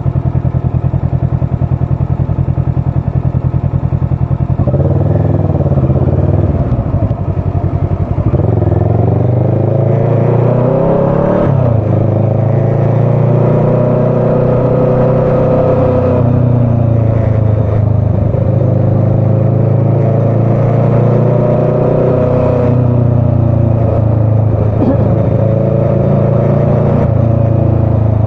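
Motorcycle engine idling with a steady pulsing beat, then pulling away about five seconds in. It accelerates through the gears, the note rising and dropping back at each of several gear changes, then runs steadily at road speed.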